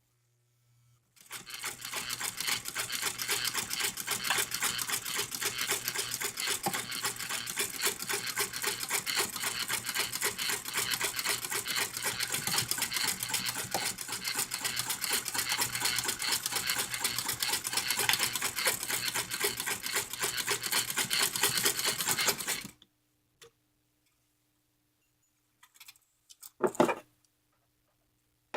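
1957 Toyota Marvel De Luxe heavy-duty sewing machine running at a steady fast stitch through four layers of wool apparel fabric, starting about a second in and stopping a few seconds before the end; it sews through the thick stack with no problem.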